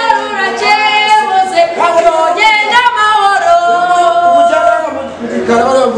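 A woman and a man singing together without accompaniment, drawing out long held notes.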